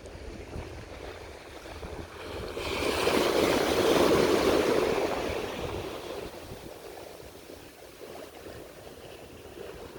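Ocean wave washing in, swelling to a peak about four seconds in and fading away, over a low steady rumble of wind and surf.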